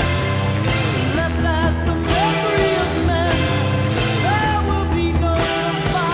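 Late-1960s psychedelic rock recording played loud: a full band with drums and bass, and singing that slides and wavers in pitch.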